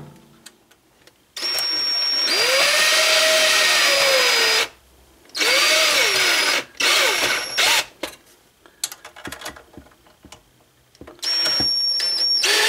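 Cordless drill with a socket on low speed driving the screw of a worm-gear hose clamp. It runs in four bursts: a long one of about three seconds, two short ones, and a last one near the end. The motor's whine rises and then sags within each burst as the clamp takes up, and light clicks of handling fall in the gaps.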